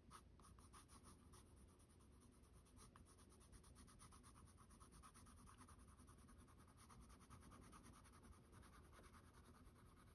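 Faint scratching of a Faber-Castell Polychromos coloured pencil on toned mixed-media paper, laid down as a quick, even run of short strokes.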